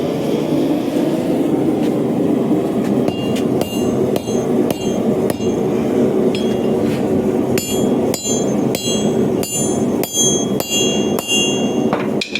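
A hammer strikes steel on an anvil, peening a heated screw set as the pivot rivet of hand-forged blacksmith tongs. There are irregular ringing blows, roughly two a second, starting about three seconds in, over a steady roar from the running forge.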